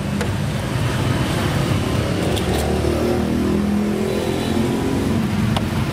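Low, steady rumble of road traffic, with one engine rising and then falling in pitch in the middle, as a vehicle passes; a few light clicks over it.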